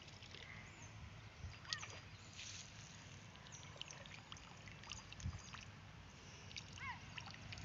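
Faint trickling and splashing of water as a cast net is hauled in out of a pond, with a bird chirping a couple of times.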